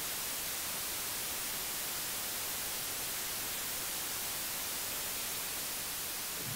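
Steady hiss of static from a CRT television showing snow with no signal.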